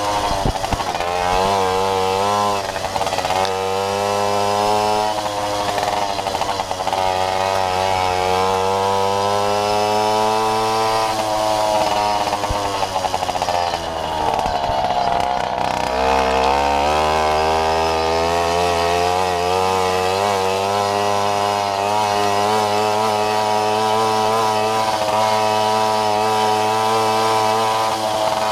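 Jawa Babetta moped's single-cylinder two-stroke engine running hard, its pitch rising and falling as the throttle opens and closes. A little past the middle it drops to low revs, then climbs again.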